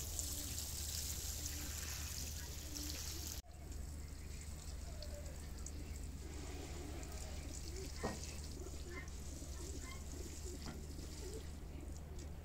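Water pouring and splashing from a plastic watering can onto plants and soil, a steady hiss that drops off briefly about three and a half seconds in, then goes on softer, with a few small clicks.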